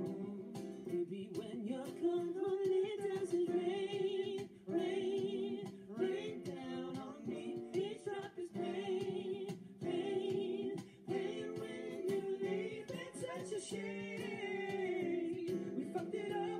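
Live acoustic pop song: acoustic guitars strumming under lead and backing vocals, several voices singing together.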